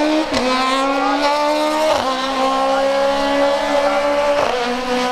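Race car engine at full throttle, pulling up through the gears with three quick upshifts: one just after the start, one about two seconds in, one near the end, the pitch climbing steadily between them.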